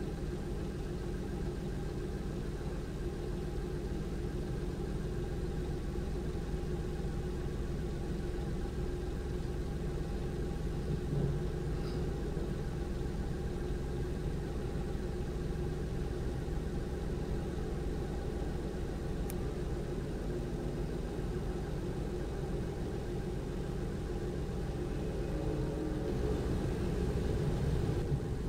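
Steady low drone of engines idling, with several held tones, a small knock partway through and a slight swell near the end.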